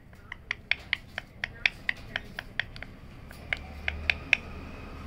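Rose-ringed parakeet's beak clicking as it bites at a plastic toothbrush held to its face: a rapid run of sharp clicks, about four a second, with a short break about three seconds in.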